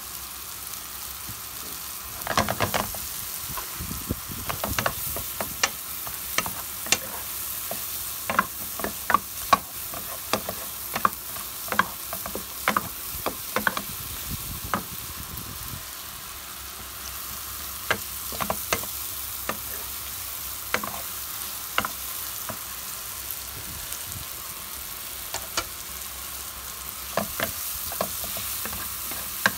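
Sliced mushrooms sizzling in butter and oil in a frying pan, with a steady hiss. A wooden spatula stirs and scrapes them against the pan in irregular clicking strokes, which pause briefly a couple of times.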